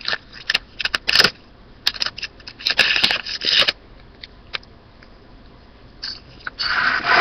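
A stick of gum's paper-and-foil wrapper crinkling and rustling in the fingers as it is unwrapped, in irregular crackly bursts that pause midway and pick up again near the end.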